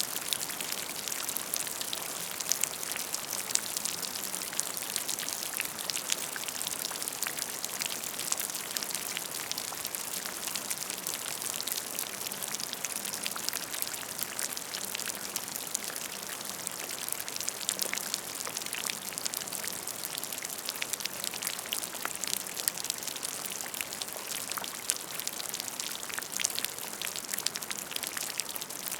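Steady rain: an even hiss of rainfall dotted with countless small, sharp drop ticks.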